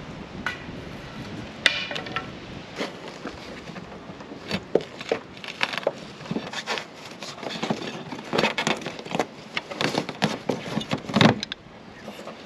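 A screwdriver prying and scraping at the rusty metal frame of an old roof vent fan, making a run of sharp metal clicks and clinks. The loudest clank comes near the end as the corroded fan assembly is lifted free of its opening.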